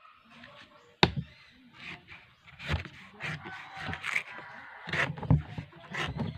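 A blade chopping into a fresh coconut: several sharp chops, the loudest about a second in, with scraping and rustling between them.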